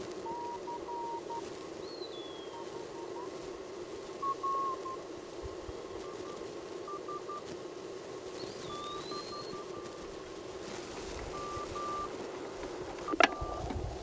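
Receiver audio from a Heathkit HW-8 QRP CW transceiver being tuned across the band. A steady hiss of band noise comes through the homebrew audio amplifier and filter, and Morse code signals come and go as short beeps of about one pitch. A single sharp click near the end is the loudest sound.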